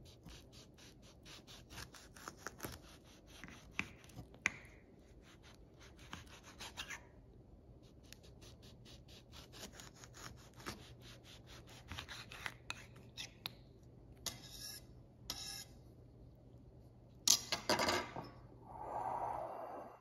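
Kitchen knife sawing through a lemon's peel and flesh: runs of quick rasping strokes, with a few sharper clicks as the blade meets the counter. Near the end, a louder knock followed by a short scraping slide.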